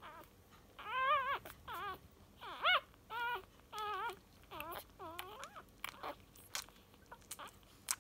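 Newborn cockapoo puppies squeaking and whimpering: about seven short, high, wavering cries, one after another, then a run of small clicks as the pups suckle at their mother.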